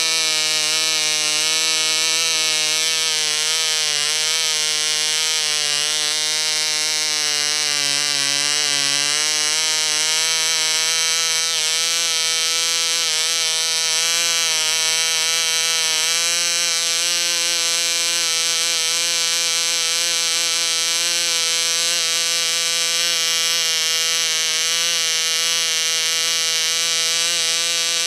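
Model diesel (compression-ignition) engine running at about 10,000 rpm with a steady high-pitched whine. Its pitch wavers and sags briefly about eight seconds in, then settles, while the compression screw is being adjusted.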